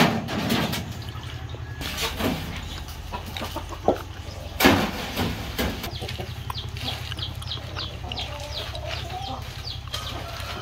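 Chickens clucking, with a run of short calls in the second half, over a steady low hum. A few sharp knocks and rustles, the loudest near the start and about halfway through, come from rice dough being handled on a plastic sheet beside a metal tray.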